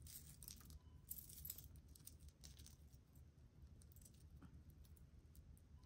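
Faint clinking and rustling of a pile of metal costume jewelry being rummaged through by hand: light scattered ticks, busiest in the first couple of seconds.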